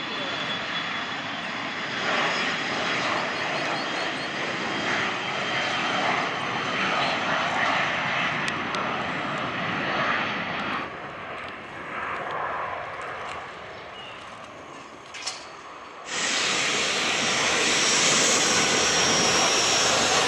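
Twin turbofan jet engines of an Embraer E-99 early-warning aircraft running on the runway, the noise swelling about two seconds in and falling away after about eleven seconds. About sixteen seconds in it cuts to a different steady noise with a thin high whistle.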